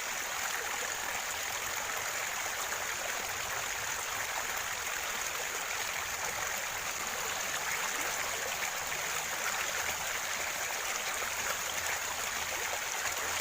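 Steady rushing and gurgling of a flowing river.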